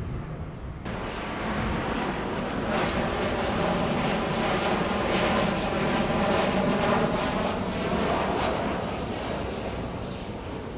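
Jet aircraft passing low overhead, its engine rush swelling to a peak around the middle and slowly fading away.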